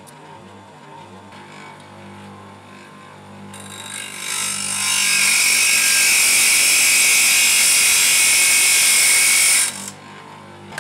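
Bench grinder running with a steady motor hum. From about four seconds in, a small metal shelf-support tab is pressed to the grinding wheel, giving a loud metal-on-stone grind for about five seconds. It then falls back to the hum near the end.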